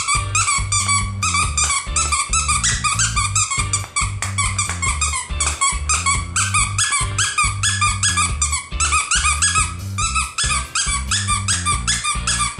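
Squeaker inside a plush squirrel dog toy squeaking rapidly and over and over, about four squeaks a second, as a corgi chews on it. Background music plays underneath.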